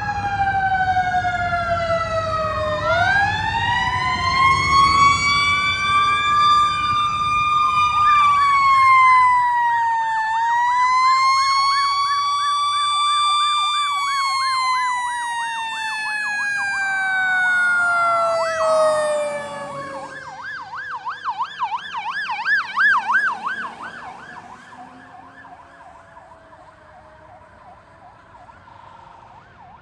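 Sirens of responding fire apparatus and ambulances, several at once: slow rising and falling wails overlap, and from about eight seconds in a rapid yelp joins them, with a low rumble under the first few seconds. The sirens fade away over the last several seconds as the vehicles move off.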